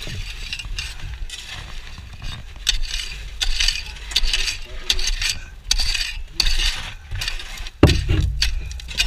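A metal hand tool scraping and digging into packed sand, in repeated gritty strokes with sand falling away, and one heavier thud about eight seconds in.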